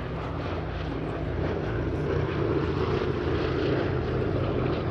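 Boeing B-17 Flying Fortress's four radial piston engines droning steadily as the bomber flies past, growing louder about a second and a half in.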